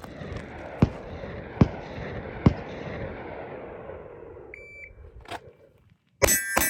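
Three handgun shots about 0.8 s apart, each striking an AR500 steel plate that rings on and fades over the next few seconds. A short electronic beep follows, then a loud burst with a ringing beep-like tone near the end.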